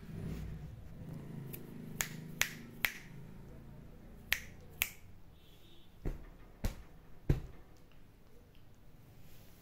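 Eight sharp clicks, a snap each, in short groups about half a second apart, with a low hum under the first few seconds.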